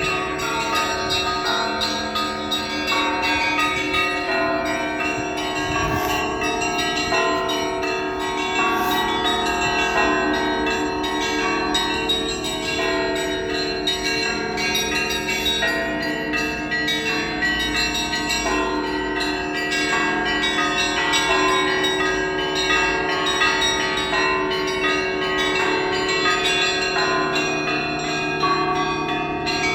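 Russian Orthodox church bells ringing together: many bells of different pitches struck over and over in a dense, continuous peal, with deeper bells sounding under the higher ones.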